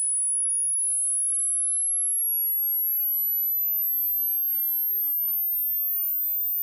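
Pure sine-wave test tone from an audible-range frequency sweep, very high-pitched and cutting in suddenly, then gliding slowly and steadily upward at an even loudness from about 10,000 Hz to about 14,000 Hz.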